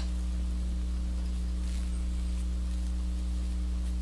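Steady low electrical hum with a few faint rustles of hands handling deer hair, and one short click right at the start.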